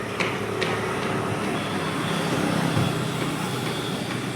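Steady road-traffic noise, with a couple of short sharp clicks about half a second apart near the start.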